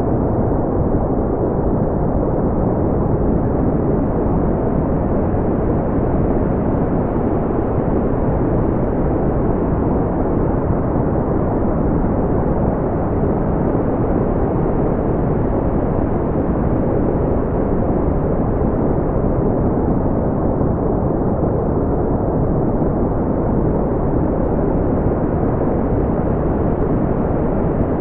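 Brown noise: a steady, deep rushing hiss with most of its weight in the lows, rolling off sharply above a couple of kilohertz, with no changes or events.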